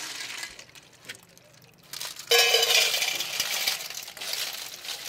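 Freshwater snails (ghonghi) clattering and clinking in their shells as they are poured from one stainless-steel bowl into another. The loud rattling pour starts suddenly about two seconds in. Before that there are light clicks of shells being handled.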